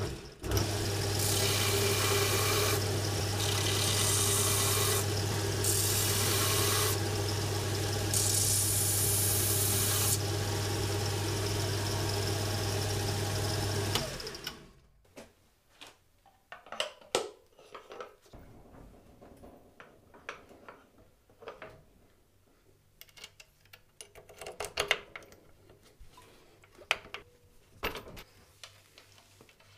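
Belt sander running, with the linings of motorcycle drum-brake shoes pressed against the belt in four passes that each bring in a hissing grinding noise; the motor is switched off about 14 seconds in. After that, scattered light clicks and knocks of metal parts being handled.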